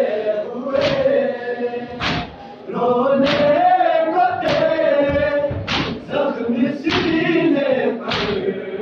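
A crowd of men chanting a noha, a Shia mourning lament, in unison, with a sharp chest-beating slap (matam) from the whole group about every second and a quarter, seven times.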